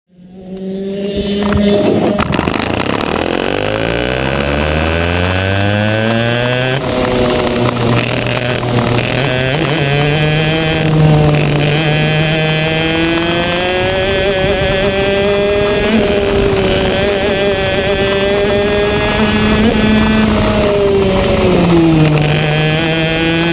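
Racing kart engine heard onboard, fading in and revving up hard over the first several seconds as the kart accelerates. It then holds high revs with small rises and falls in pitch, dipping briefly near the end before climbing again.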